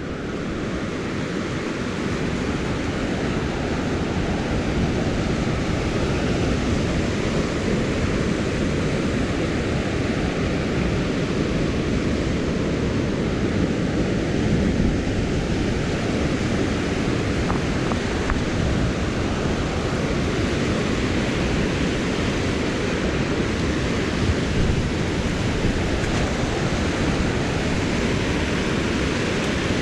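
Ocean surf breaking on a sandy shore, a steady rushing noise, with wind on the microphone.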